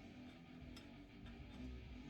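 Very faint: a few light clicks over low background music.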